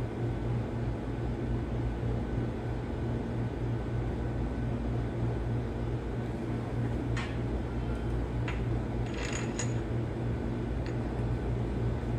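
Light metallic clinks of steel parts being handled while a gear is fitted onto the front timing gear train of a Caterpillar 3176 engine, a few taps in the second half with a small cluster about three quarters of the way through, over a steady low hum.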